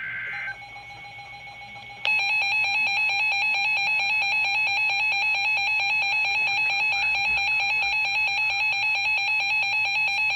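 Emergency Alert System broadcast: the tail of a short burst of digital header data, then about two seconds in the loud, steady EAS attention signal starts, a harsh two-tone alert tone.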